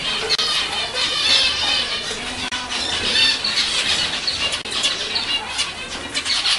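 A flock of zebra finches calling at once, a dense chorus of short overlapping calls that goes on without a break.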